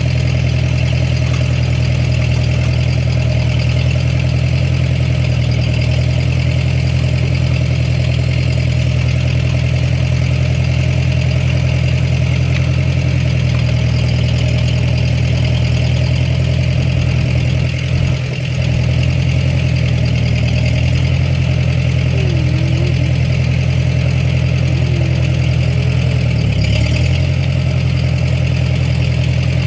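Ford 8N tractor's four-cylinder flathead engine running steadily, with a brief dip about two-thirds of the way through and a few faint short squeaks near the end.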